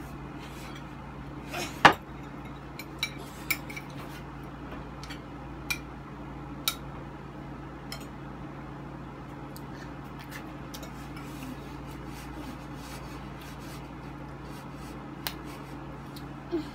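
Forks and spoons clinking and tapping on ceramic plates, with drinking glasses set down on the table: one loud clack about two seconds in, then scattered lighter clinks.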